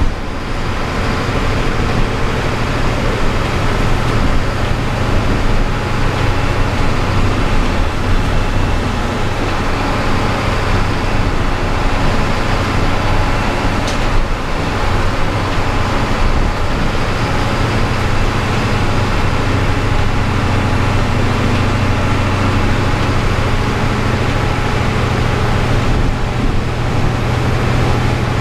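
City bus engine running steadily under way, with road noise from tyres on a wet road, heard from inside the bus.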